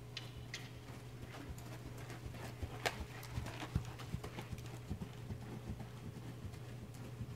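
Hoofbeats of a Percheron/Quarter Horse cross gelding trotting on sand arena footing. They are dull, irregular thuds that get loudest about three to four seconds in, as the horse passes close, then fade as it moves off.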